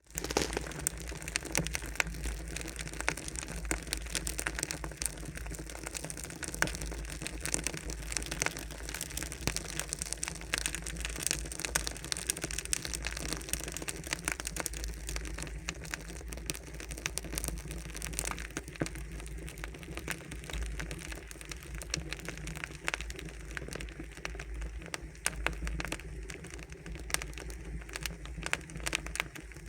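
Campfire burning, crackling with many small irregular pops and snaps over a steady hiss.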